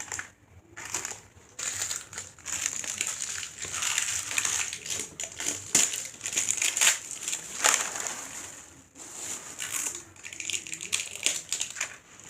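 Small plastic wrapper of a blind-bag toy crinkling and crackling as it is unwrapped by hand, a busy run of crackles with a short lull about nine seconds in.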